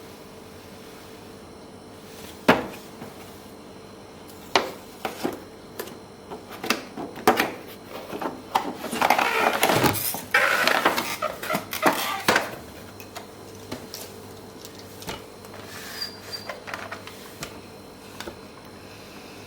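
Box and packaging being handled: scattered knocks and clicks, with a longer stretch of rustling and scraping about nine to twelve seconds in.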